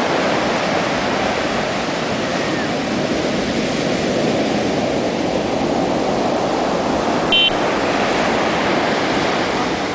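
Shore-break ocean waves crashing and washing up a sand beach, a steady dense rush of surf. A brief high-pitched sound cuts through once, about seven and a half seconds in.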